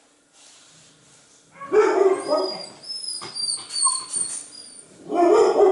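A dog barking twice, once about two seconds in and again near the end, with high thin whining in between.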